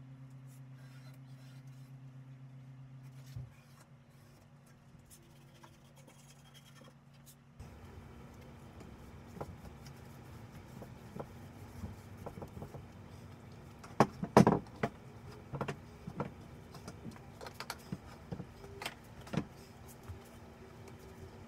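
Scattered light knocks and taps of a wooden cabinet being handled and shifted on a workbench, with a louder cluster of knocks about two-thirds of the way in. A steady low hum in the first few seconds stops abruptly.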